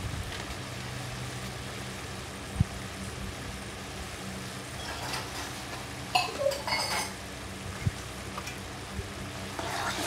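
Steel spoon clinking against small steel spice jars and the kadai as spices are scooped and added: a sharp single tap about two and a half seconds in, a quick cluster of ringing clinks around six to seven seconds, and another tap near eight seconds, over a steady low hum.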